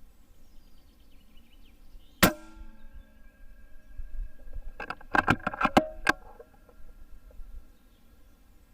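Altaros M24 PCP air rifle firing a single slug shot, one sharp crack with a short metallic ring. About two and a half seconds later comes a quick run of about six sharp clicks.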